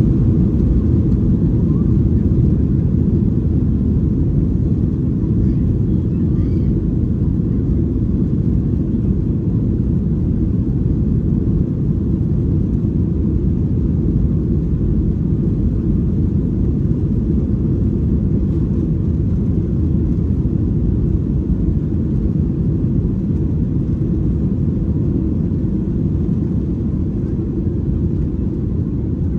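Passenger airliner's engines running, a steady low rumble with no rise or fall.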